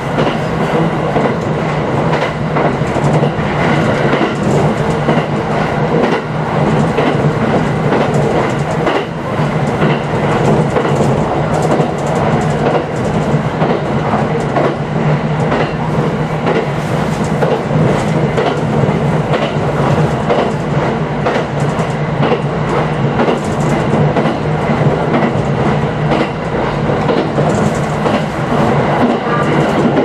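JR 701 series electric train running steadily, heard from inside the car: a continuous rumble of wheels on rail with the clickety-clack of wheels passing over rail joints.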